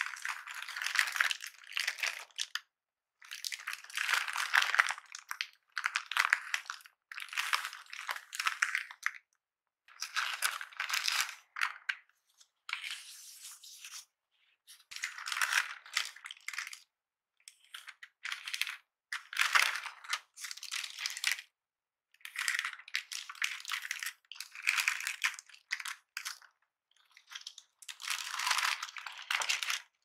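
Tissue-paper wrapping and a thin plastic bag crinkling and rustling in short bursts, with brief pauses between them, as a keyboard is unwrapped and slid out of its packaging.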